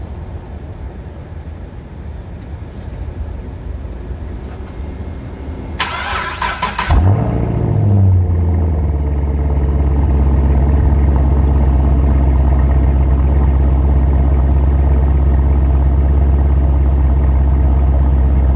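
Cold start of a 2012 Chevrolet Camaro's 6.2-litre V8, heard at the exhaust from under the car. The starter cranks for about a second around six seconds in, the engine catches with a brief rev flare, then settles into a steady, loud, deep fast idle.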